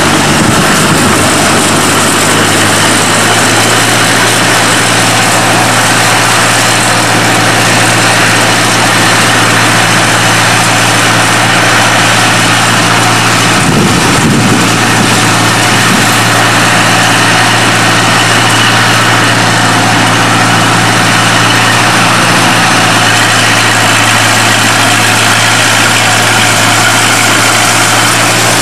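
Small narrow-gauge diesel locomotive's engine running at a steady low hum as it hauls a train of open passenger wagons, under an even hiss.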